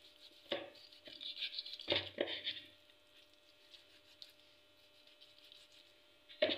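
Kitchen knife slicing deep cuts into raw chicken leg pieces on a plate: a few sharp taps of the blade against the plate with scraping as it slices, all in the first half, then little sound.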